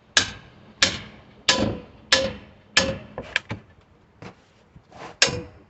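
Small sledgehammer striking a steel pry bar again and again, about one blow every two-thirds of a second, each with a short metallic ring, working the bar between the boards of a wooden pallet to pry them apart. A quick double knock comes in the middle, and after a pause there is one more blow near the end.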